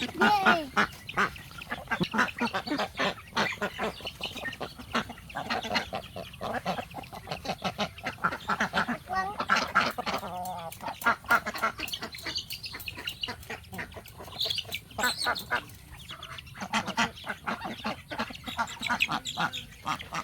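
A flock of ducks quacking, with many calls close together and no letup.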